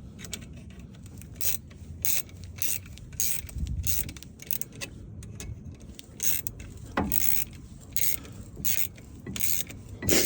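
Hand ratchet worked in short strokes: irregular runs of metallic clicking, with clinks of metal tools.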